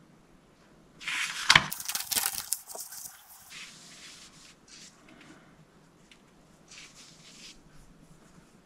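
Paper pages of an old repair manual rustling and crinkling as they are handled and pressed flat, loudest from about one to three and a half seconds in, followed by a few faint rustles.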